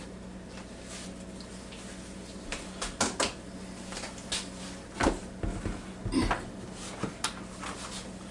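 Scoop and cookware knocking and clinking while hot food is taken out of a Ninja Foodi air fryer basket. A quick cluster of knocks comes about three seconds in, with single knocks around five, six and seven seconds, over a steady low hum.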